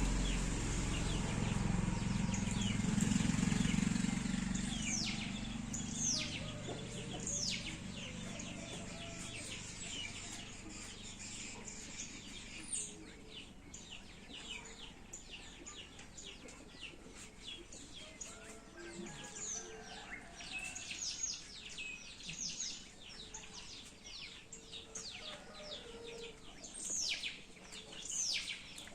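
Small birds chirping, many quick high chirps that each sweep downward, coming thicker and faster in the second half. A low rumble in the first few seconds fades away.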